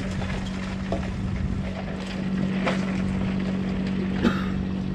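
A boat motor running steadily as a low, even hum, with wind on the microphone and a few faint ticks from handling gear.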